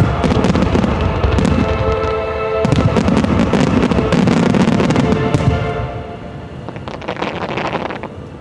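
Aerial fireworks bursting and crackling in rapid succession, with music playing underneath. The bursts are dense for the first five seconds or so, then thin out, with a last flurry of crackles shortly before the end.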